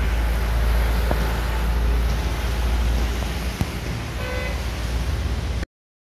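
Roadside traffic noise with a heavy low rumble, and a short vehicle horn toot about four seconds in. The sound cuts off abruptly near the end.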